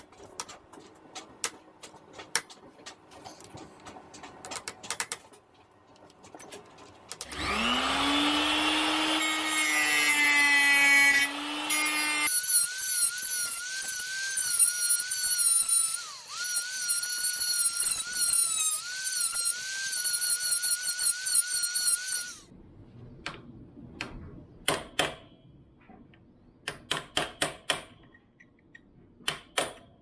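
Small electric angle grinder with a cut-off disc spinning up about seven seconds in, running free for a few seconds, then cutting into the jammed steel drive chain at the dirt bike's front sprocket for about ten seconds, its whine dipping as the disc bites, before shutting off. Before and after, scattered sharp metal taps from hammering at the chain.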